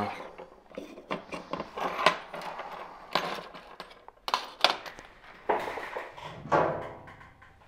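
Small tools and parts being handled and knocked about on a workbench: an irregular string of clicks, taps and light rattles as a lost small screw is hunted for.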